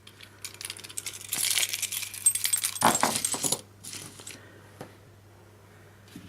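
A keychain's small metal tools and ring jingling and clinking together as it is handled, a busy run of jangling in the first half, then a few single light clinks.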